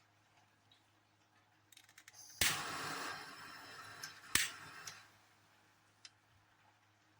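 Butane torch lighter being fired: a few light clicks, then a sharp click of the igniter and a hissing gas jet for about two and a half seconds, with a second sharp click partway through and a faint click about a second after the hiss stops.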